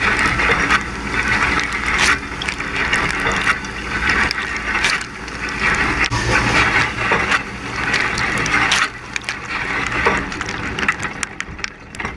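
Dishwasher wash cycle heard from inside the machine: water from the spray arms splashing against the camera, surging and easing about once a second as the arms sweep past.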